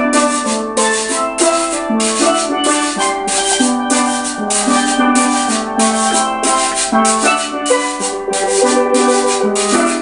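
Steel pan trio playing a lively calypso tune, with ringing pitched pan notes over a bass line and percussion keeping a steady beat of short hissing strokes about twice a second.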